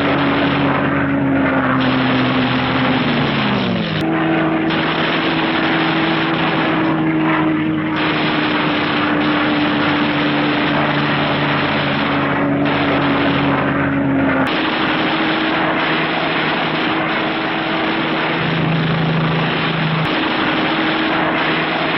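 B-29 bomber's piston engines and propellers running with a steady drone. The pitch sags about three seconds in, and the sound changes abruptly at about four, fourteen and twenty seconds.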